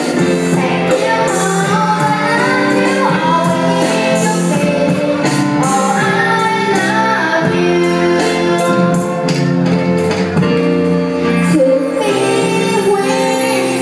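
A young girl singing a song into a microphone through a PA, backed by a live band with electric guitar and keyboard.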